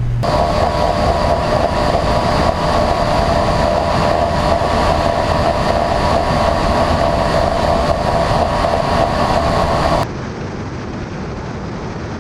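Vehicle running at highway speed: a steady whine over rushing wind and road noise. About ten seconds in it cuts off abruptly to a quieter, duller road rush.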